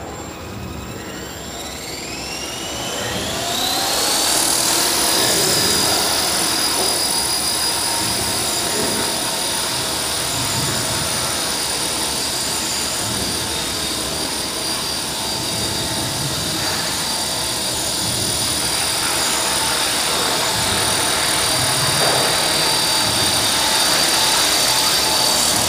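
Small electric RC helicopter's motor and rotors spooling up, the whine rising in pitch over about three seconds, then holding a steady high-pitched whine with rotor noise as the model hovers.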